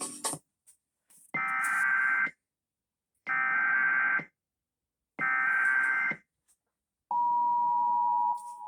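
Emergency Alert System SAME header: three bursts of about a second each of screeching data tones, a second apart. About seven seconds in, the steady two-tone EAS attention signal (853 and 960 Hz) begins.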